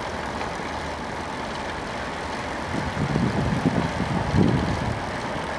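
A vehicle running at low speed, a steady engine and road hum, with a louder rumble for a couple of seconds around the middle.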